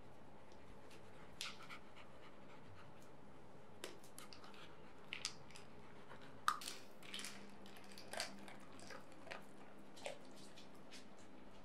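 Plastic wobble treat-dispenser balls being nosed and tipped by dogs: faint, scattered clicks and knocks, the loudest about six and a half seconds in.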